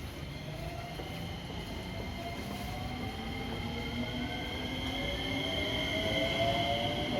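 JR West electric commuter train's VVVF inverter traction motors whining as the train pulls away and accelerates. Several tones rise steadily in pitch over a rail rumble, growing louder.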